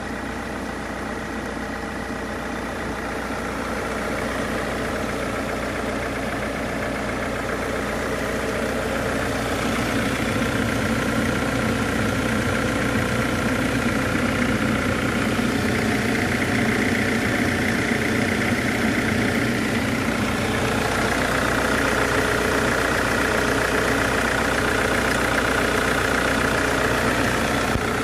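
Mercedes-Benz OM646 2.1-litre four-cylinder common-rail diesel idling steadily, with no revving. It grows louder over the first ten seconds or so as the microphone nears the open engine bay.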